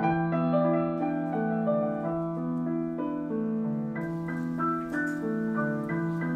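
Background piano music: a slow keyboard melody over held chords.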